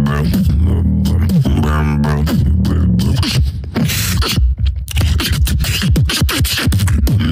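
Solo beatboxing close on a handheld microphone. It opens with a sung, wavering bass line in the first few seconds, then turns to a fast run of sharp mouth-percussion hits.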